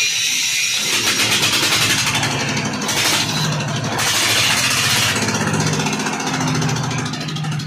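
Horizontal single-cylinder diesel engine, freshly serviced with some internal parts renewed, running with a rapid, even firing beat. It grows louder and hissier through the middle, with the engine note shifting up and down.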